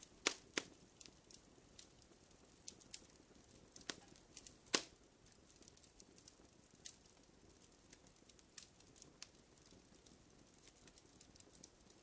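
Faint campfire crackling: scattered sharp pops and snaps at irregular intervals, the loudest nearly five seconds in.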